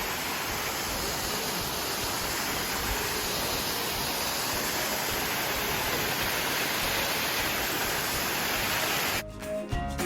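A waterfall rushing, a steady, even roar of falling water. About nine seconds in it cuts off abruptly and music begins.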